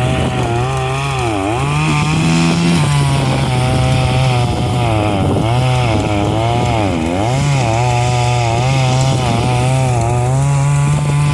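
Chainsaw running at high revs and cutting wood from a fallen pine tree. Its pitch sags several times as the chain loads up in the cut, then climbs back.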